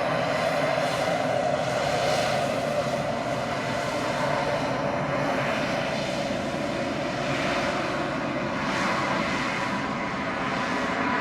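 Daher TBM 910 single-engine turboprop running steadily, a continuous turbine-and-propeller drone with no marked rise or fall in level.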